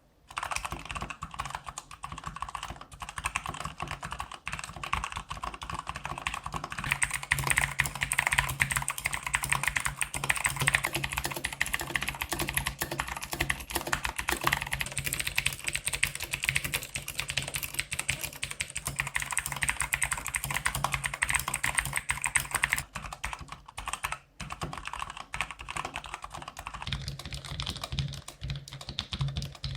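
Fast typing on a mechanical keyboard: a dense, continuous clatter of keystrokes, with a short pause a few seconds before the end, after which the clatter sounds slightly different.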